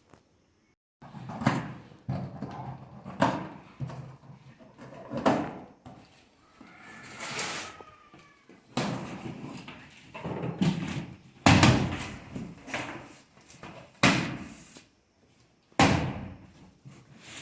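Repeated knocks, thumps and rustling of a split air conditioner's cardboard carton and packing being handled and opened. The heaviest thumps come in the second half.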